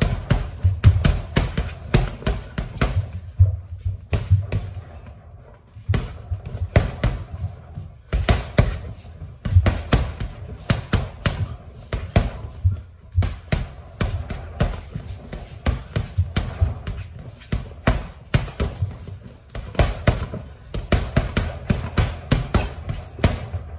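Boxing gloves punching a hanging heavy bag: flurries of dull thuds, several a second, with short breaks between combinations.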